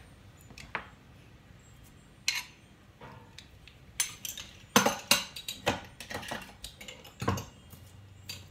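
Metal kitchen utensils clinking and clacking as a garlic press and other tools are handled: a scatter of sharp single knocks, busiest and loudest from about four to six seconds in, with another near the end.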